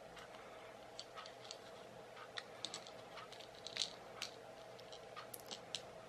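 Faint small clicks, creaks and scrapes of a car cigarette-lighter charger plug being worked apart by hand, its plastic shell and small circuit board knocking and rubbing together; the loudest click comes about two-thirds of the way through.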